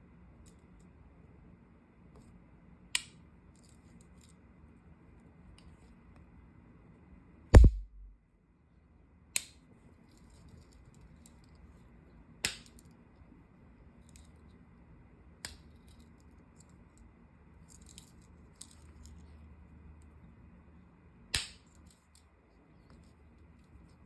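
Victorinox Swiss Champ multitool's blades and tools clicking against their backsprings as they are worked, about six sharp metallic clicks a few seconds apart. The loudest, about seven and a half seconds in, carries a low thump, and faint small ticks of handling come between.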